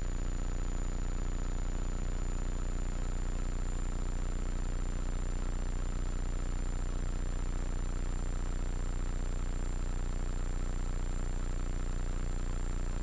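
Hummingbird helicopter's engine and rotor running steadily under power during its departure climb, heard from the cockpit as an even drone with no change in pitch or level.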